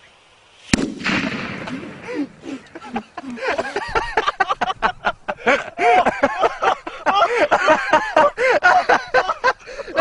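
A firecracker packed into a cowpat bangs once, sharp and loud, under a second in. Excited voices follow, shouting and laughing in rapid broken fits.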